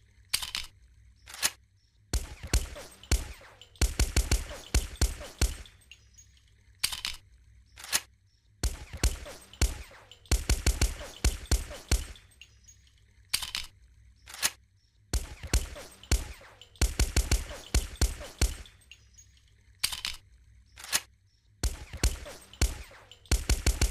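Suppressed M1911 pistol shots: sharp cracks, some fired singly and many in quick strings of several a second, with short pauses between the strings.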